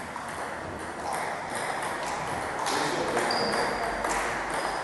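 Table tennis serve and rally: the ball clicking sharply off the paddles and the table, about one hit every half second from a second or so in, in a large gymnasium.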